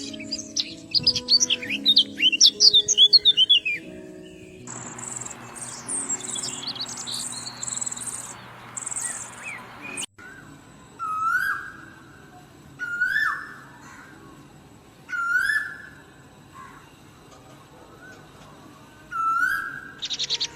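Wild birds singing in a series of clips over soft background music: a quick run of chirps, then high thin notes over a hiss, then a bird repeating a short rising whistled call every two seconds or so, four times.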